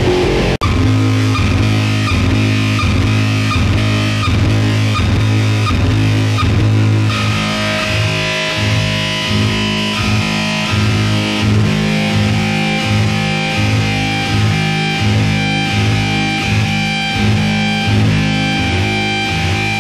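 Loud noise-rock recording with distorted electric guitar and bass playing a pulsing low riff. It cuts out for an instant about half a second in as one track gives way to the next, and about seven seconds in a brighter, fuller layer comes in on top.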